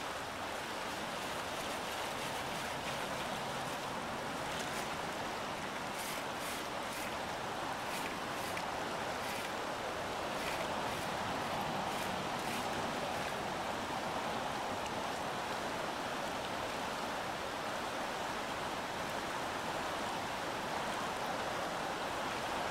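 Fast-flowing river rushing steadily over a gravel and cobble bar.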